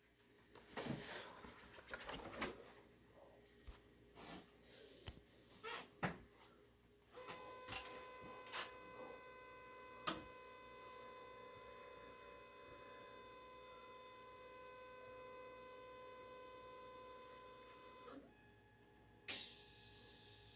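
Robot-assisted TIG welding setup: a few faint clicks and knocks, then a steady buzzing tone with a high whine that starts with a click about seven seconds in, holds for about eleven seconds and cuts off. Another sharp click comes near the end.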